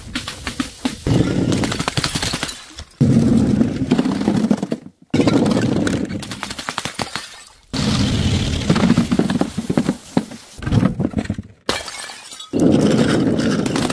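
Glass bottles shattering and broken glass crunching, in about five or six separate takes cut one after another. Each take starts abruptly with a loud burst of crackling, breaking glass that then thins out.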